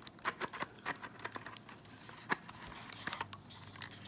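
Irregular small clicks and taps of a plastic HO-scale model locomotive body shell being worked off its metal chassis by hand, with one sharper click about two seconds in.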